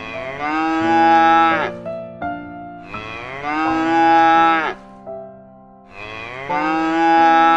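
Cow mooing three times, each moo about a second and a half long and dropping in pitch at its end, over a light keyboard tune.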